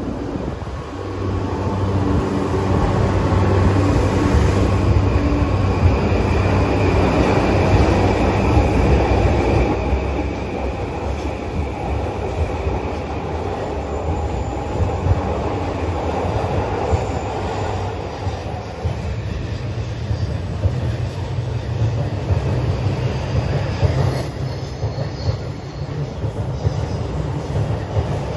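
JR E235-series electric train pulling out of the platform and gathering speed as its cars pass close by: motor whine rising in pitch early on, then the steady rush and clatter of wheels on the rails.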